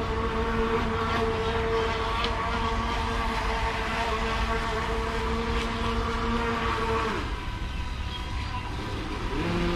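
Motor of a radio-controlled model boat running at a steady pitch, then dropping slightly and stopping about seven seconds in, over a low rumble.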